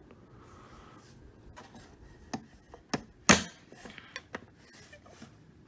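Hard plastic vacuum cleaner parts being handled: a scatter of sharp clicks and knocks, the loudest about three seconds in.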